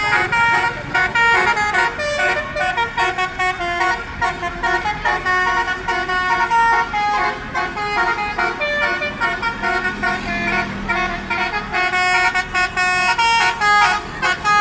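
A bus's telolet basuri horn, a set of electric air horns that plays tunes, sounding a melody of short notes that step up and down in quick succession without a break.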